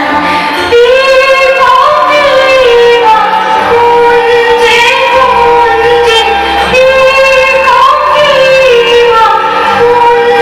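A song: a woman's singing voice, with long held, gliding notes, over a loud instrumental backing.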